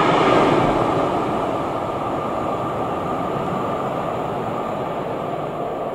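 Sound of a Class 47 diesel-hauled train running away down the line after passing, the noise of wheels on rails fading steadily.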